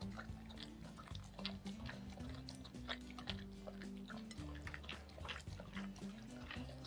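Soft background music with held low notes, over a dog licking and chewing a whipped-cream-topped treat in quick, irregular little smacks and clicks.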